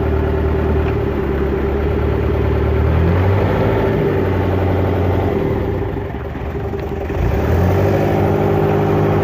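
Inboard engine of an abra water taxi running loudly under way. The low engine note changes about three seconds in and dips briefly near the end as the boat slows to come alongside the jetty, then runs steady again.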